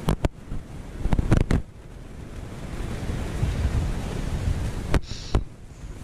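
Small surf washing onto a sandy beach, with wind rumbling on the microphone. Several short knocks cut through: a cluster about a second in and two near the end.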